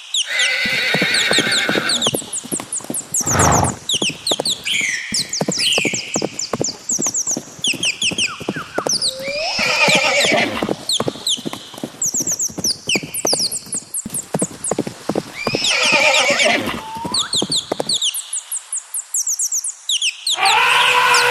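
Horses whinnying several times, about every six seconds, over hooves clip-clopping on hard ground; the hoofbeats stop about 18 seconds in. Birds chirp throughout.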